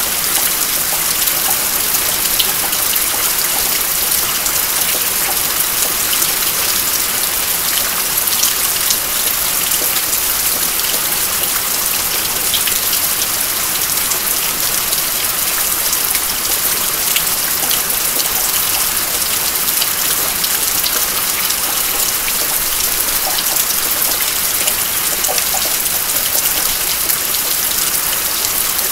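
Steady rain: an even hiss with many scattered drops striking close by, as water drips from a roof edge.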